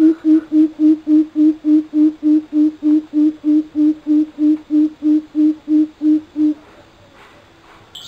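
Coucal (bubut) calling: a long, even series of deep hoots, about three or four a second, that stops about six and a half seconds in.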